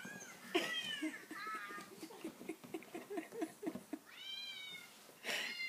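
A cat meowing over and over, about five rising-then-falling calls, played through a phone's small speaker to tease the dogs. A run of short low sounds fills the gap in the middle.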